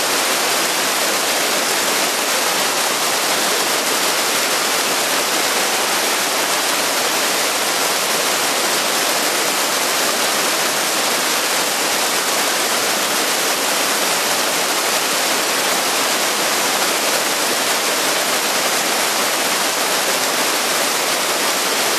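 Water pouring off the edge of a concrete roadside shelter and splashing down in a steady rushing hiss, with little low rumble and no change in level.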